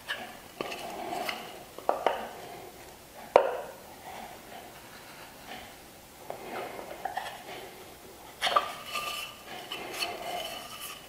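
Marking gauge scribing a line around the end of a board: the gauge's cutter scraping along the wood, broken by several sharp clicks and metallic clinks as the gauge and board are turned and set against each face.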